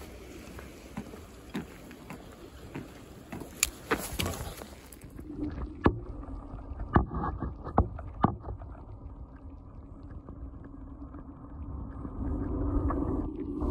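Scattered clicks and handling noise as a caught rockfish is unhooked. After about five seconds there is water sloshing, with several sharp splashes and knocks as the rockfish moves in a water-filled bucket.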